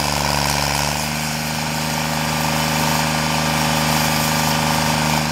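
Carlton SP7015 self-propelled stump grinder running steadily, its engine under load while the cutter wheel grinds into a tree stump, throwing wood chips.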